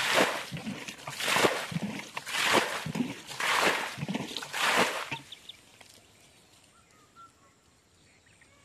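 Water splashing hard in a shallow muddy puddle, in five splashes about a second apart that stop about five seconds in.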